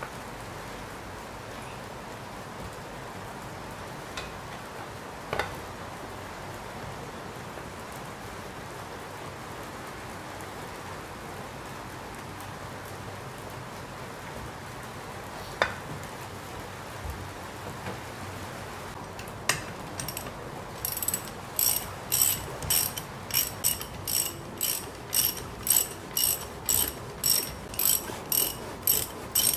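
Socket ratchet clicking in quick back-and-forth strokes, about two a second, running bolts down on a tractor hydraulic pump's side cover. The bolts are being snugged, not yet torqued. The ratcheting starts about two-thirds of the way in. Before it there are only a few isolated knocks of metal parts being handled.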